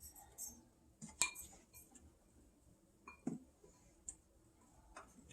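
A tablespoon clinking against a small bowl while stirring cauliflower florets: a few scattered clinks, the loudest about a second in.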